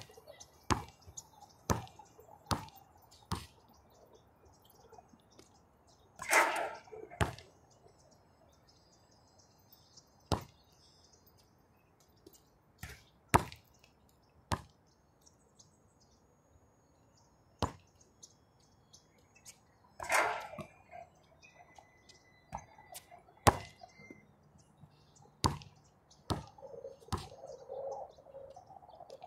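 A basketball bouncing on an outdoor court between shots, in sharp single bounces. Twice the ball hits the hoop with a louder, longer clang, about six seconds in and again about twenty seconds in.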